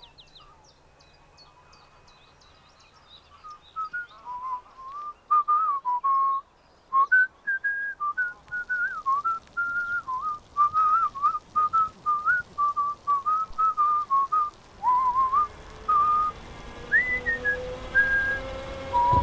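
A person whistling a slow, wandering tune in short phrases, starting a few seconds in, with faint bird chirps at first. Near the end a low drone rises slowly in pitch beneath the whistling.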